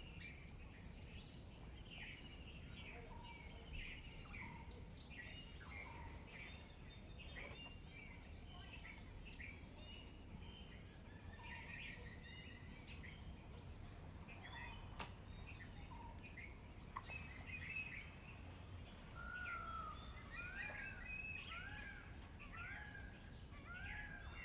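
Wild birds chirping and calling, many short chirps overlapping. In the last few seconds one bird repeats an arched, rising-and-falling whistle about once a second. A steady high hiss and a low outdoor rumble run underneath.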